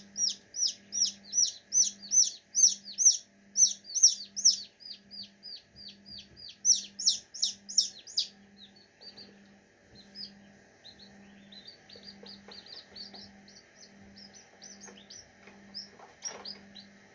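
Newly hatched chick peeping loudly and insistently, about three or four quick falling peeps a second: the distress call of a chick held away from the warmth of the incubator. About eight seconds in the peeps turn fainter and more scattered, with a faint low pulsing hum underneath.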